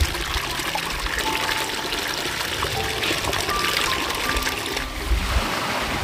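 Water trickling and running steadily, with background music of a few held notes over it.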